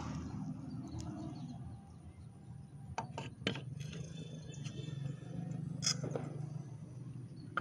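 Aluminium magneto cover of a Honda Astrea Grand engine being fitted by hand over the flywheel, knocking lightly against the crankcase: a few sharp clicks about three seconds in and another near six seconds, over a low steady hum.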